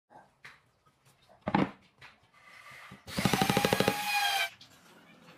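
Woodworking on a bench: a few light knocks and one heavy wooden thud, then about a second and a half of fast, even rattling with a ringing tone, the loudest sound here.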